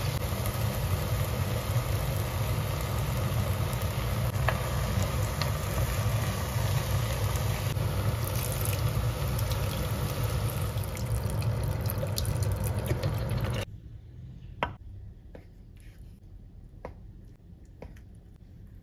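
A pot of kimchi and onion sizzling on a gas hob over a steady low rumble, with stock poured in about ten seconds in. About 14 seconds in it cuts off suddenly to a much quieter stretch of a few sharp knife taps on a wooden cutting board as tofu is cut into cubes.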